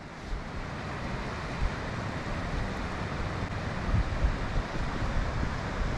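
Wind gusting across the microphone: a steady rushing noise with irregular low rumbling buffets, a little stronger about four seconds in.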